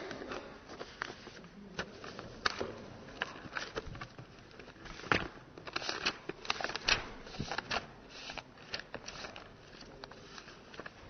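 Sheets of paper being handled close to a lectern microphone: irregular rustles and crackles with small knocks, scattered through the whole stretch.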